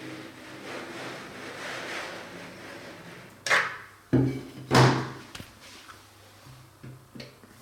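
A phone being taken out of a container of hot water: a rushing, sloshing noise of water and handling, then three sharp knocks within about a second and a half, and a few lighter clicks.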